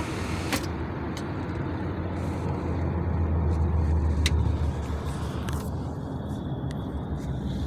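Steady low road and engine rumble heard inside a moving car's cabin, swelling slightly around the middle, with a few faint clicks.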